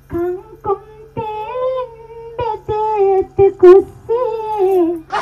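A high voice singing in long, held notes, a few phrases with short breaks between them.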